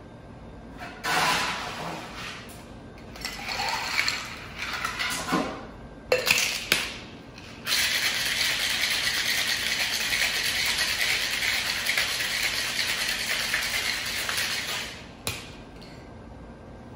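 Ice clattering into a Boston shaker with some knocks of tin and glass as it is closed. Then ice rattles steadily inside the shaker as the cocktail is shaken hard for about seven seconds, chilling the drink. A sharp knock near the end.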